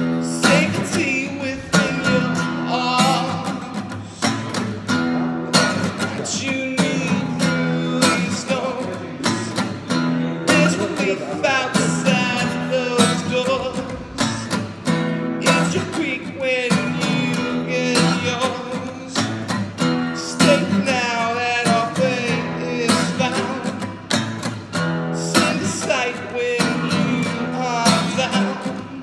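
A man singing to his own strummed acoustic guitar, the strokes coming in a steady rhythm under the wavering vocal line.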